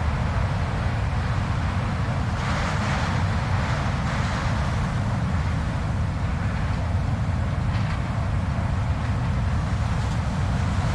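Blizzard wind: a steady deep rumble with gusts of higher hiss that swell and fade, the strongest a couple of seconds in and a shorter one near the end.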